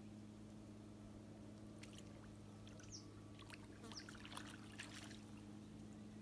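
Faint water splashing and dripping in short irregular bursts for a few seconds, over a steady low hum.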